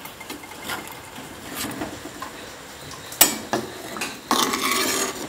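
A metal spatula stirring a watery curry in an earthenware pot, scraping and clinking against the clay. There is one sharper knock a little past halfway and a denser stretch of scraping near the end.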